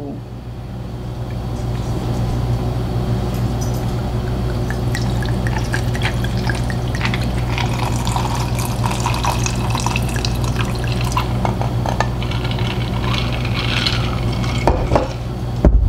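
Rum poured from a bottle over ice cubes in a glass, the pour steady and the ice crackling and clinking with many small clicks, over a constant low electrical hum.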